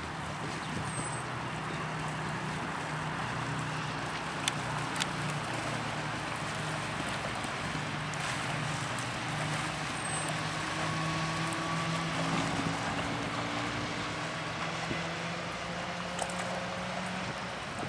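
Diesel engine of a passing cargo barge running with a low, steady hum, over a steady hiss of wind and moving water.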